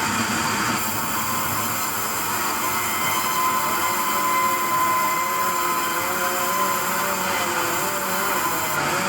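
Wood-cutting machinery running steadily, with a whine that wavers up and down in pitch.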